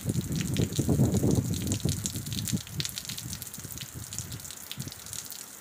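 Rain falling on a wet courtyard and puddles: a steady patter of fine drops. A low, gusty rumble is strongest in the first half and then fades.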